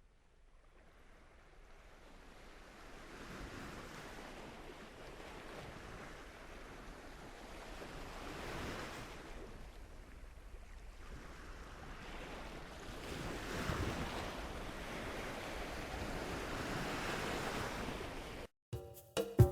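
Ocean surf: waves rolling in and washing out, swelling and fading every few seconds, with some wind. It fades in from silence and stops just before the end.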